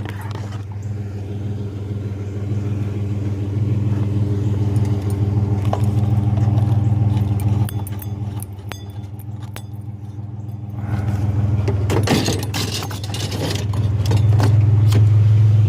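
Truck engine idling steadily, with scattered metallic clicks and a spell of rattling and clatter about twelve seconds in as scrap is tugged loose.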